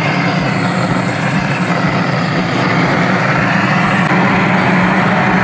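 Propane weed-burner torch running steadily at full flame, searing a pork roast.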